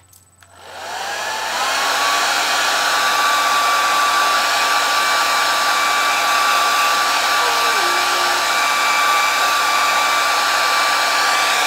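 Handheld hair dryer switched on about half a second in, its motor spinning up with a rising whine for about a second, then running steadily: a loud rush of air with a steady whine on top.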